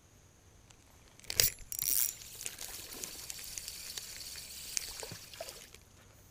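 Spinning rod and reel cast: a sharp snap about a second in, a loud rushing swish as line pays out, then a few seconds of steady high whirring hiss with small ticks as the reel is worked, stopping shortly before the end.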